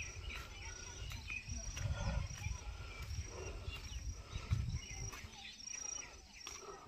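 Faint outdoor ambience: an insect chirping in short high notes about once a second, over irregular low rumbling on the microphone.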